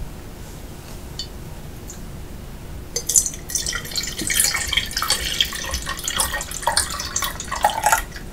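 Milk poured from a pitcher into a large wine glass: the stream splashes into the glass from about three seconds in and stops shortly before the end.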